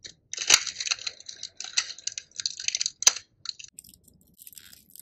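Dry keratin segments of a rattlesnake's rattle crackling and clicking as fingers pry them apart: a dense run of small crisp clicks with two sharper snaps, about half a second in and about three seconds in, thinning out near the end.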